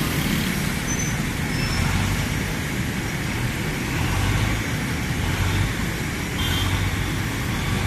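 Street traffic with a steady low engine rumble from heavy vehicles and motorcycles passing close by. A brief high tone sounds about six and a half seconds in.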